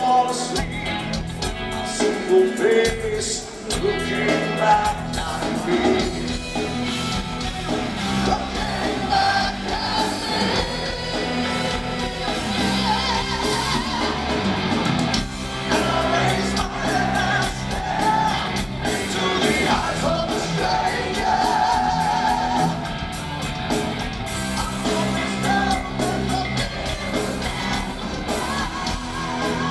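Heavy metal band playing live: a male lead vocalist sings and holds wavering notes over distorted electric guitar, bass and drums.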